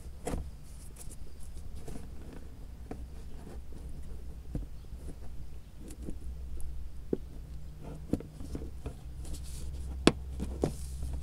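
Hands closing up a car's plastic wheel-well access panel after a headlight bulb change: scattered light plastic clicks, knocks and rubbing, with one sharper click about ten seconds in, over a steady low hum.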